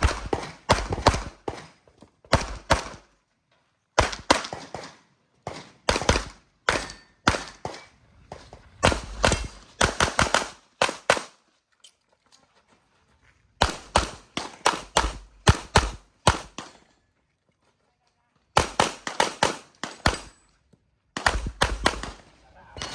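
Tanfoglio pistol firing rapid strings of shots in quick succession, in several bursts. There are two breaks of about two seconds, one midway and one past two-thirds of the way through.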